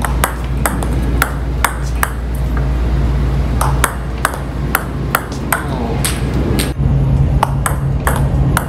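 Table tennis ball clicking off the table and the rubber-faced bats in quick little groups: short serves being returned with short, low stop pushes, played over and over. A steady low hum runs underneath.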